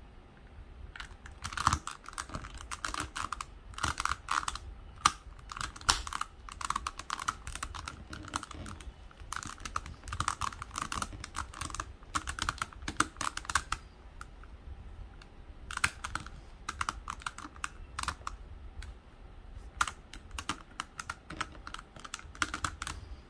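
Hard plastic pieces of a Rua cube puzzle clicking and rattling as they are handled and pushed into the puzzle's core: clusters of small quick clicks, with a couple of short pauses.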